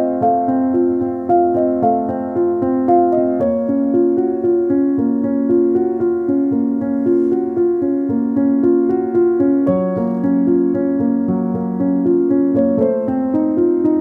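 Gentle piano music: a flowing melody of single notes over steady chords, the harmony shifting twice.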